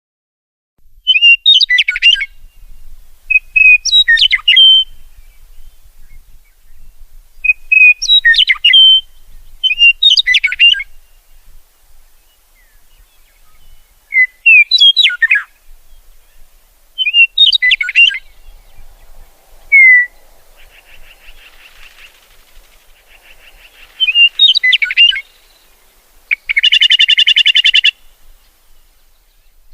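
Songbird singing short, repeated phrases of quick whistled sweeps, one every couple of seconds, starting about a second in. Near the end comes a loud, rapid, buzzy trill lasting about a second and a half.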